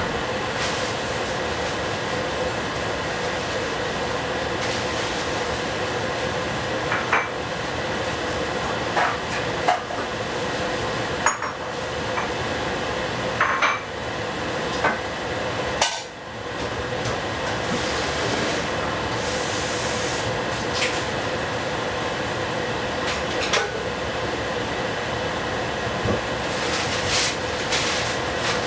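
Fried rice with bok choy cooking in a covered pan on the stove: a steady hiss over a low hum, broken by a dozen or so sharp clinks and knocks of cookware.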